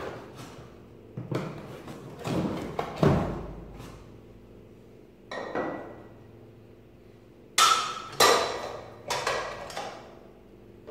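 A floor-standing lever wine corker being worked while corking glass wine bottles: irregular sharp clunks and knocks from the handle and mechanism and from bottles being set on and lifted off its stand, some followed by a short ring. The loudest knocks come close together about two-thirds of the way in.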